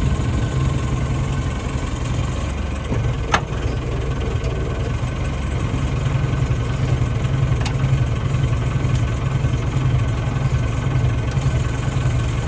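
Forklift engine running steadily at low speed while the forks are worked under a car, with a sharp click about three seconds in and a fainter one near eight seconds.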